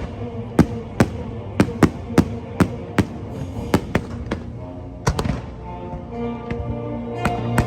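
Fireworks bursting in sharp bangs, about two a second, over the show's soundtrack music. After about five seconds the bangs thin out and the music's held notes come forward.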